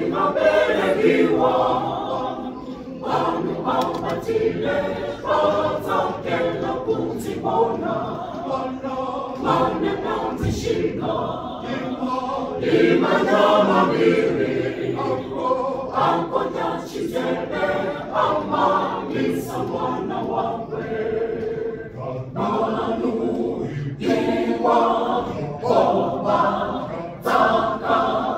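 Church choir of men and women singing together in harmony, without instruments.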